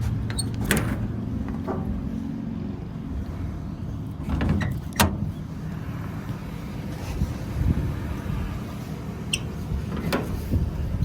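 Ford F550's 6.7 Power Stroke diesel idling with a steady low hum, over which come several sharp clicks and knocks of metal being handled.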